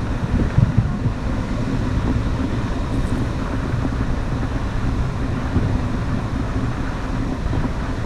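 Wind buffeting the microphone over the steady low rumble and rush of a cruise ship's wake.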